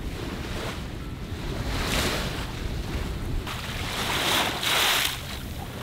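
Water rushing and splashing along the hull of a sailboat moving under sail, surging louder about two seconds in and again around four to five seconds. Wind rumbles on the microphone underneath.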